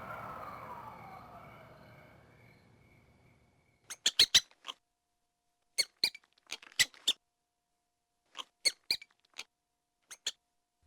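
Cartoon sound effects: a fading tone that glides down over the first two seconds, then after a pause short, sharp clicks or squeaks in small quick groups.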